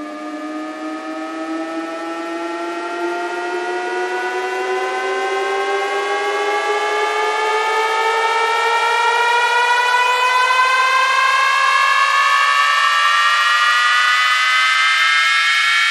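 A slowly rising electronic riser sweep of layered synth tones, climbing steadily in pitch and growing louder throughout, as used to test a DJ sound system.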